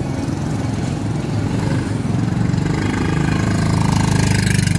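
A small engine running with a steady low pulsing, growing louder over the second half.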